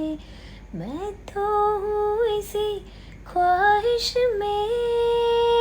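A woman singing solo without accompaniment: short sung phrases with pitch slides and ornaments, then a long held note near the end.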